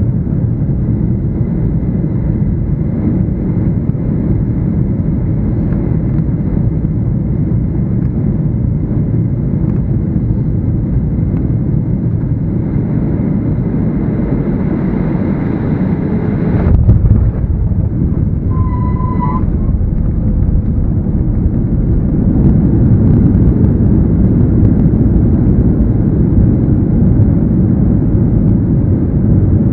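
Cabin noise of a Boeing 737-800 landing: a steady roar of its CFM56 engines and airflow, then the main wheels touch down with a thump a little past halfway. A brief high tone follows, and from about two-thirds in the engines grow louder as reverse thrust is applied during the rollout.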